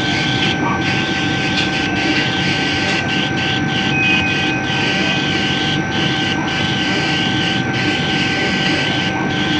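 Laser cutting machine running as its head traces a design: a steady mechanical drone with a steady high whine.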